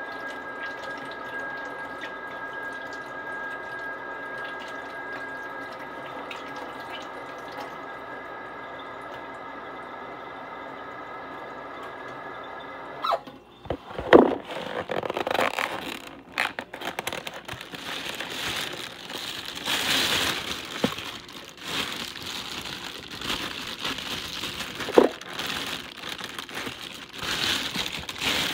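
A steady machine hum with several even tones stops suddenly about halfway through, followed by irregular knocks, clicks, scrapes and rustling of things being handled.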